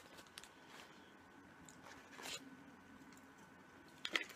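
Faint eating and handling sounds: quiet chewing, with a few clicks and a short crinkle from a thin plastic container being handled. The sharpest pair of clicks comes near the end.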